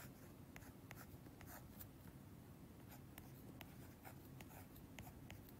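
Faint, irregular taps and scratches of a stylus writing numbers on a tablet screen.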